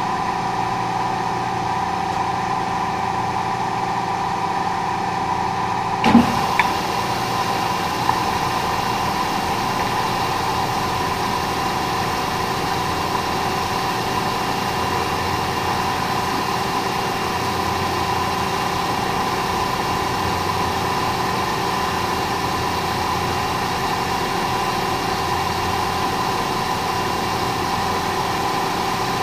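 Milling machine running with a steady hum. About six seconds in there is a knock, and from then on a steady high hiss joins the hum as the cutter takes its cut.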